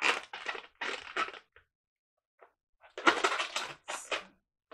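A long latex modelling balloon being twisted and rubbed in the hands, the rubber squeaking and crackling in two bouts with a short pause between.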